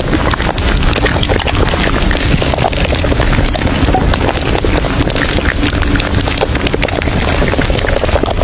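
Café ambience: a steady din full of small clicks and clatters, like cups and dishes.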